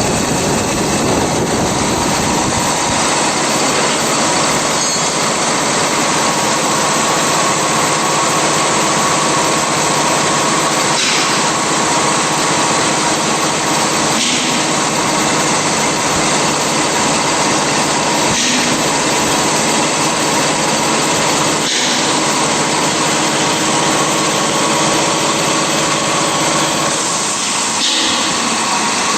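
Pet feed extruder machinery running steadily: a constant motor hum and whine over a dense mechanical noise, with a few faint knocks every few seconds.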